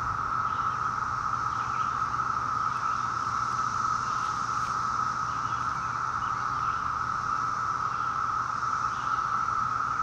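Chorus of Brood V periodical cicadas: males calling en masse to attract mates, making one steady, unbroken high-pitched drone.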